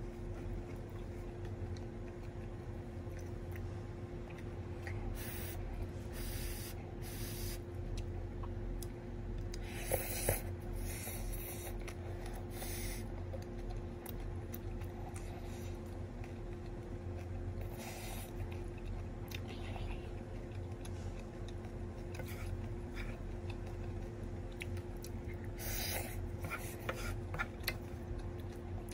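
Wooden spatula stirring and scraping kimchi fried rice around a nonstick frying pan, in irregular scratchy strokes, over a steady low hum.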